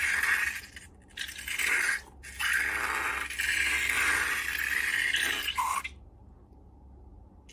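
Sticky slime being worked and squished by hand, a run of wet scraping, squelching strokes with two short breaks, stopping about six seconds in.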